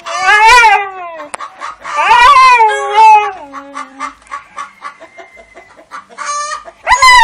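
Loud, repeated squawking calls from an animal, about five of them, each under a second long, rough-edged and mostly falling in pitch.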